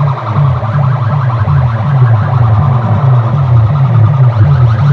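A loud electronic warbling tone blasted from a truck-mounted DJ speaker stack; its deep bass steps up and down in pitch about three times a second.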